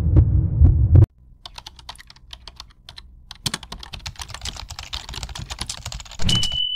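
Intro sound effects: a deep bass hit for about the first second, then a long run of rapid, irregular crackling clicks. Near the end comes a short steady high tone over a low thud.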